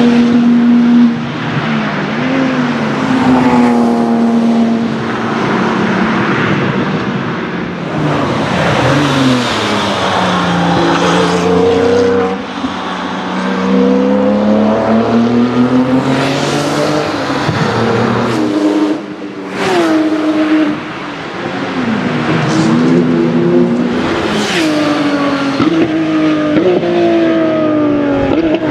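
Porsche 997 GT3 and GT2 RS flat-six engines at hard throttle as the cars drive past one after another. The engine note rises and falls repeatedly, with sharp breaks at gear changes and lifts, and drops in pitch as each car goes by.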